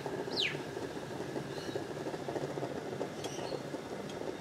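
Homemade woodgas camping stove burning steadily with its small 5-volt blower fan running. A short falling bird chirp comes about half a second in, with fainter chirps later.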